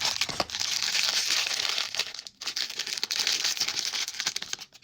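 Crinkly wrapper of a Smiski blind-box figure being crumpled and torn open by hand, a dense run of crackling with a short break partway through.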